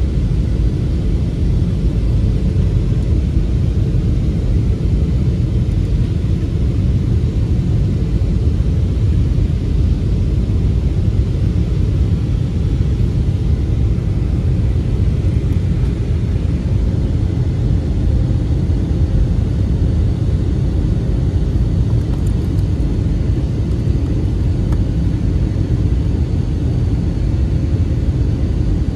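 Steady low rumble of engine and airflow noise inside a jet airliner's cabin, heard at a window seat as the plane descends toward landing.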